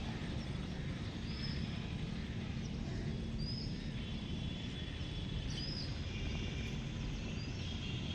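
Short, high, down-curving bird chirps, about five of them spaced a second or two apart, over a steady low rumble of background noise.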